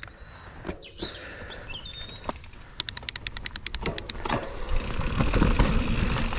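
A few bird chirps, then a mountain bike's freewheel hub ticking rapidly for about a second as the bike rolls off, followed by louder tyre-rolling and wind noise as the ride gets under way.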